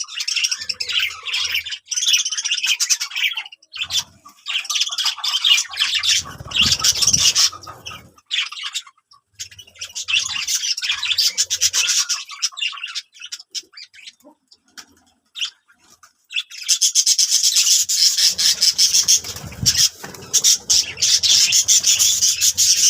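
Pet budgerigars chattering and warbling rapidly in bouts of a few seconds with short pauses between, the longest bout in the last third; the owner takes this chatter as a sign the birds are playful and happy.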